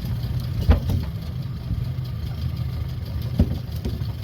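Small boat's motor idling steadily, with a couple of sharp knocks, one just under a second in and another near the end.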